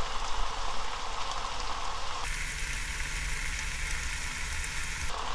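Seasoned bracken fern sizzling as it fries in its own juices in a nonstick pan while it is stirred. About two seconds in the sizzle turns abruptly brighter and hissier, with a steady low hum under it, and switches back near the end.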